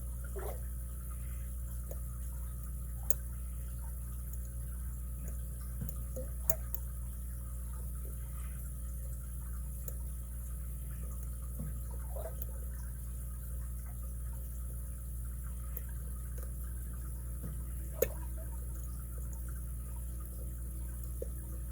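Lock pick and tension wrench working the pins of a 38 mm all-brass Eagle five-pin padlock: faint scraping with a few small, sharp metallic ticks, the loudest about three quarters of the way through, over a steady low hum.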